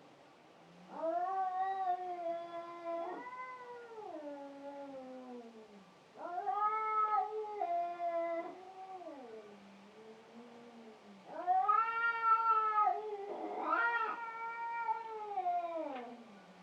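Cats caterwauling in a fight: three long, drawn-out yowls that waver and slide down in pitch at their ends, with a harsher, rougher screech about two-thirds of the way through.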